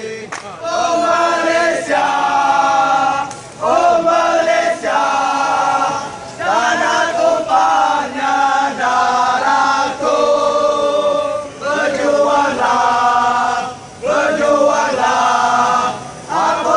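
Large group of football supporters singing a chant in unison, in repeated sung phrases of about two seconds each with short breaks between them.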